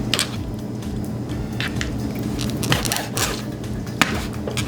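Knife cutting raw chicken thighs on a cutting board: a few irregular cuts and taps of the blade against the board, over a steady low hum.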